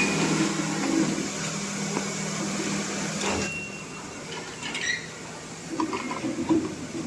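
A 10-ton crane's machinery running under test with a steady hum, which stops about halfway through; scattered clicks and knocks follow.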